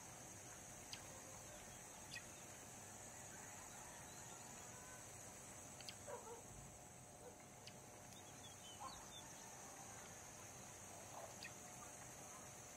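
Near silence: a steady faint high hiss, with a few soft ticks and some faint, short chirping calls.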